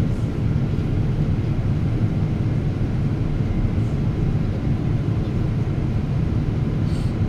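Boeing 777-300 airliner in flight, heard from inside the cabin: a steady, even low rumble of engines and airflow.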